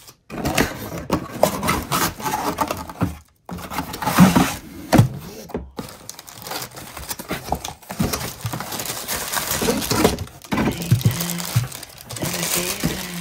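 Cardboard packaging being handled: the inner cardboard tray of a box scraping and knocking as it is pulled out, with plastic bag wrapping crinkling, in a run of irregular thunks and rustles.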